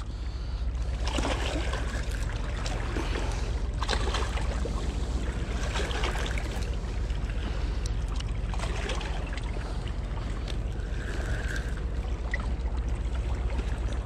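Steady wash of river water and wind over a constant low rumble, with a few faint scattered knocks.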